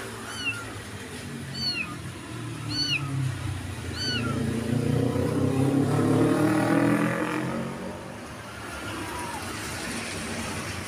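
A kitten meowing: four short, high-pitched meows about a second apart. From about four seconds in, passing motorbike engines take over as the loudest sound, rising and then fading by about eight seconds.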